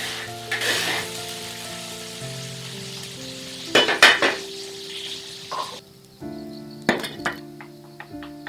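A metal spatula scraping and clinking in a large wok as stir-fried okra is dished onto a plate, with the frying sizzle fading out; the loudest is a quick run of scrapes about four seconds in. Soft instrumental music with held notes plays throughout.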